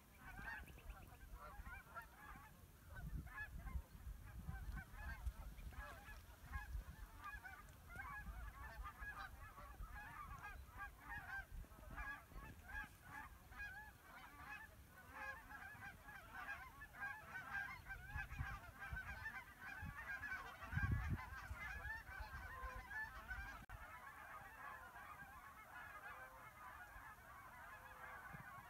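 A large flock of geese calling continuously, many overlapping short honks forming a steady chorus. A low rumble runs underneath, with a single low thump about three-quarters of the way through.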